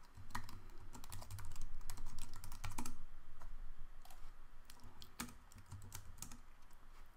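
Typing on a computer keyboard: a quick run of keystrokes for about the first three seconds, then scattered single key clicks.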